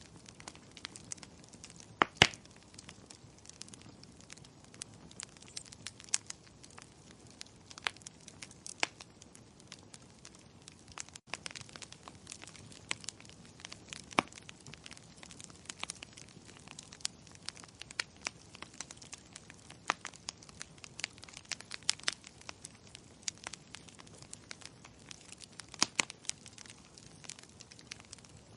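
Wood fire crackling steadily: a soft hiss under irregular sharp pops and snaps, with a loud double snap about two seconds in.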